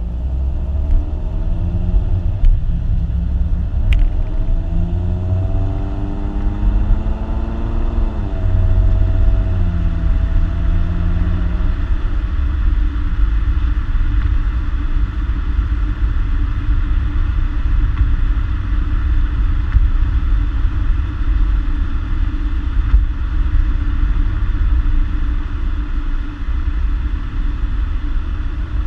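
A 2014 Ford Mustang's 3.7-litre V6 on its stock exhaust, driving: the engine note rises steadily for about eight seconds, drops suddenly at a gear change, climbs briefly again, then eases off into a steady low rumble at cruise.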